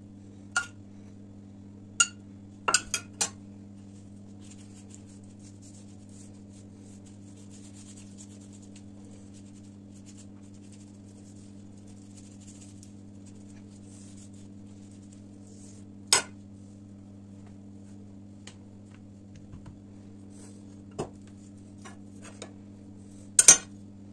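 Metal spoon and utensils clinking against a stainless steel saucepan, a few quick clinks at the start, then single ones later and a louder clink near the end. In between, a faint soft swishing as a silicone pastry brush spreads melted margarine and oil over rolled-out dough, over a steady low hum.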